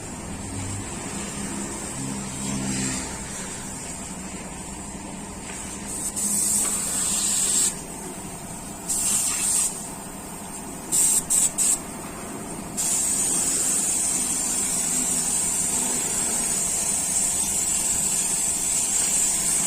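Hissing spray, like compressed air from an air tool: a few separate bursts, then a quick series of short puffs, then a steady hiss that runs on from about two-thirds of the way in.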